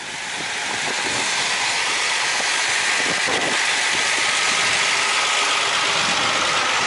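Strong wind rushing over the microphone: a loud, steady hiss that builds over the first second or two, with a faint steady hum underneath in the second half.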